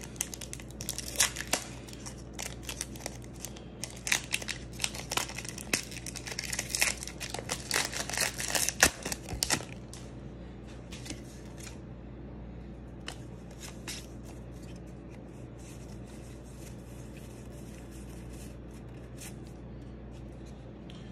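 A foil Pokémon booster pack being torn open and crinkled, dense and crackly for the first ten seconds. After that come only occasional soft clicks and slides as the trading cards are handled and flipped through.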